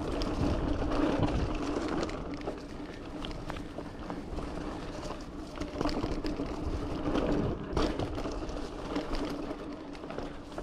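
Giant Fathom 2 mountain bike riding down a dirt trail: tyres rolling over rough ground with frequent clicks and rattles, over a steady buzzing tone.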